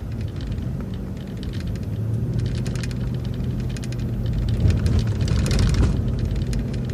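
City transit bus driving, heard from inside the cabin: a steady low engine and road drone, with a run of clicks and rattles through the middle.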